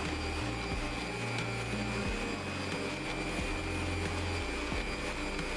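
Electric stand mixer running steadily, its whisk beating a yolk-and-mascarpone cream in the bowl, with a steady high motor whine.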